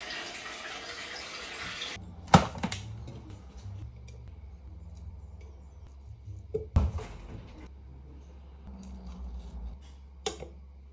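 A rushing noise, like running water, that cuts off about two seconds in. Then kitchen handling sounds over a steady low hum: a few sharp clicks and knocks as a banana is peeled and sliced with a knife over a glass of yogurt, the loudest two coming about two and a half seconds and seven seconds in.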